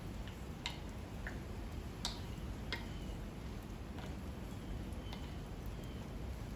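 Open-hearth wood fire crackling, with a few sharp, irregular pops over a low steady rumble. Faint short high chirps, like a small bird's, repeat through it.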